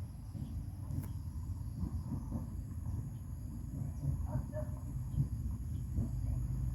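Outdoor background: a steady low rumble, faint distant voices about four seconds in, and a thin, steady, high insect drone.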